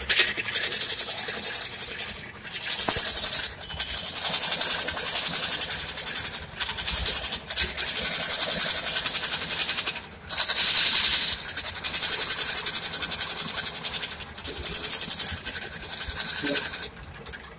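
Scroll saw's fine blade cutting through a switch board plate: a fast, high rasping buzz in long spells, stopping briefly about half a dozen times.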